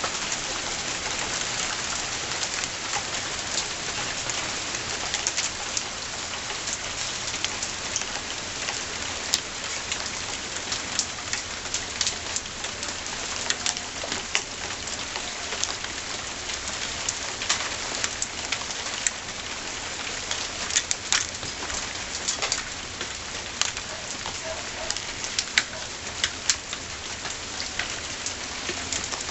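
Steady rain falling on a hard surface: a constant hiss dotted with many sharp drop ticks.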